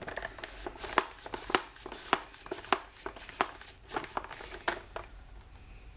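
Air pump of a Buzz Bee Ultimate Missile Blaster being worked by hand to pressurise it for a dart shot. It makes a steady series of sharp plastic clicks, roughly one every half second or so.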